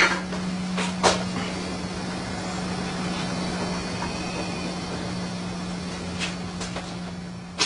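A steady low machine hum with a few light clinks of steel tools set down on the anvil, about a second in and again after six seconds.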